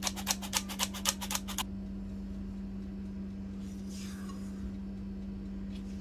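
Handheld metal flour sifter rasping in quick, even strokes, about six a second, for the first second and a half as flour is sifted into cake batter. Then a silicone spatula scrapes softly against the glass bowl, folding the flour in, about four seconds in. A steady low hum runs underneath.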